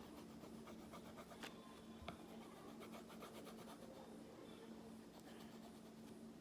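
Faint scratching of a colored pencil shading on paper, with a couple of light clicks, over a low steady hum.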